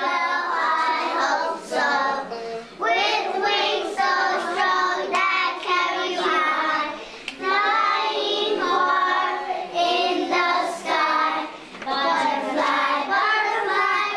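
A kindergarten class of young children singing a song together, with only brief breaks between phrases.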